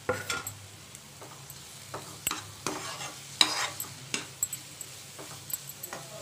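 Slotted metal spatula stirring grated coconut into a thick bitter gourd fry in a frying pan: irregular scrapes and knocks against the pan over a faint sizzle.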